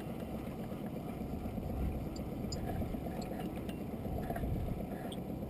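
Steady low rumble of wind and sea around a small open boat drifting at sea, with a few faint clicks.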